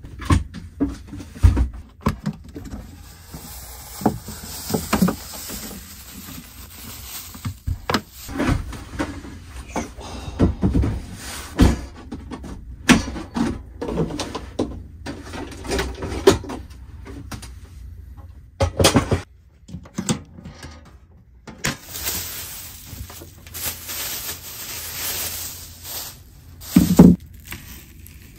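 Cookware and a portable gas stove handled on a wooden counter: scattered knocks, clunks and clatter, the loudest near the end, with a stretch of hiss shortly before it.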